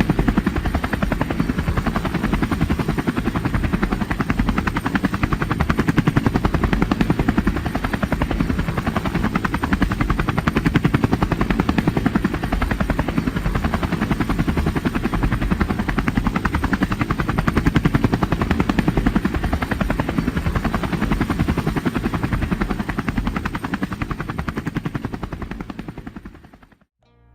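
Helicopter running steadily, with a fast, even rotor beat that fades out near the end.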